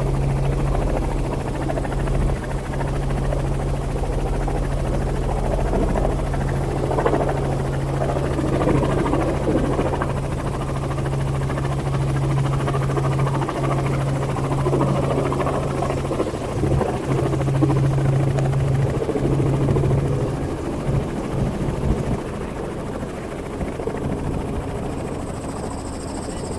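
Helicopter engine and rotor heard from inside the cabin: a steady drone with a strong low hum. About twenty seconds in the hum breaks up, and the sound then drops and stays quieter to the end.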